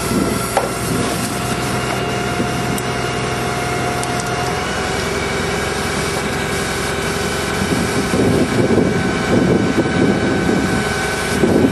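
A fire engine's pump and engine run steadily under load, with the hiss of a water fog spraying from a Fognail piercing nozzle onto a burning car. From about eight seconds in the sound grows louder and rougher as the fire is knocked down into thick steam.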